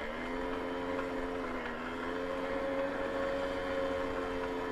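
Babetta 210 moped's 50 cc two-stroke single-cylinder engine running while riding, its note climbing slightly at the start and again about two seconds in, then holding steady.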